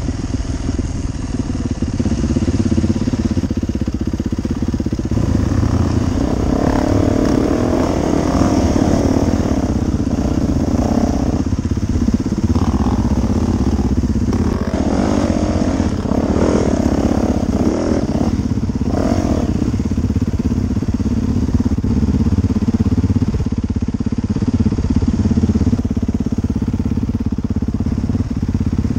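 Dirt bike engine running under load as the bike is ridden along a rough trail, heard close up from a helmet camera, the engine note rising and falling as the throttle is worked.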